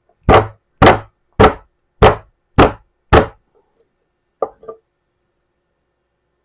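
Six sharp knocks about half a second apart, then two lighter knocks, as a ball bearing is driven into a heat-softened plastic wheel hub with a bearing-sized driver to seat it fully.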